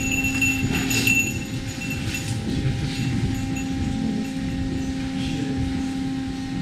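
Inside a moving ropeway cabin: a steady low rumble with a constant hum and a few light rattles.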